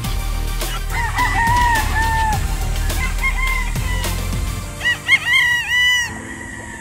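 Gamefowl rooster crowing twice, the second crow louder, near the end. Background music with a steady beat fades out partway through.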